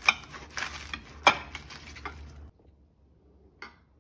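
Kitchen knife slicing through romaine lettuce on a ceramic plate: a run of crisp crunches and knife taps on the plate, loudest about a second in. It stops abruptly about halfway, followed by one faint click near the end.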